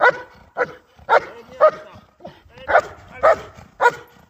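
German Shepherd barking at the helper during protection work: seven sharp, forceful barks at about two a second, with a brief pause midway.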